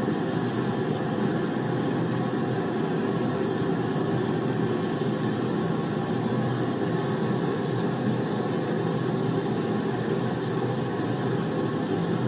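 Air conditioner running with a steady whooshing fan noise that stays even throughout.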